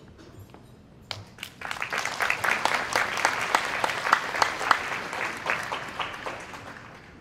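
Banquet audience applauding: a few claps about a second in swell quickly into full applause, which then dies away near the end.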